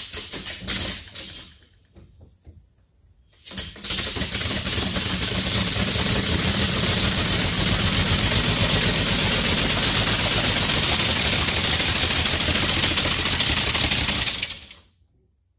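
Compressed-air engine in a Volkswagen Beetle running, its exhaust chuffing in rapid, even puffs. A short burst of puffs comes first, then a long steady run begins about three and a half seconds in and cuts off near the end.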